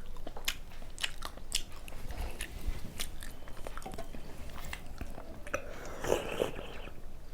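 Close-up chewing and biting of luchi with spicy chicken kosha: many small mouth clicks, briefly louder about six seconds in.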